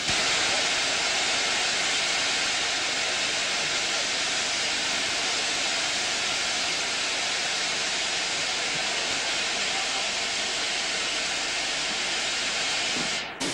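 Steam locomotive blowing off steam, a steady loud hiss that cuts off abruptly near the end.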